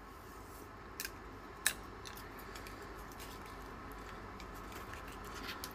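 Chopsticks clicking against a stone bowl while picking up food: two sharp clicks about a second in and again half a second later, then a few fainter taps, over a steady low room hum.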